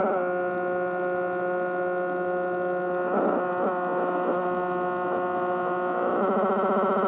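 Steady buzzing drone through a Marshall mini-stack amp, made by a ProCo RAT and a Marshall Guv'nor distortion pedal at high gain amplifying hum. It is not guitar feedback, since the strings are held. The tone warbles briefly about three seconds in and shifts near the end as the pedal knobs are turned.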